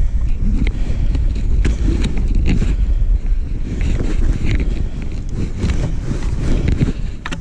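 Wind buffeting the microphone in a steady low rumble, with scattered clicks and knocks of gear being handled on an ice-fishing sled.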